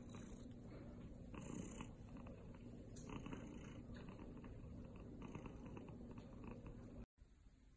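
Golden British Shorthair cat purring while being stroked on the head, swelling in regular pulses about every one and a half to two seconds; it stops abruptly about seven seconds in.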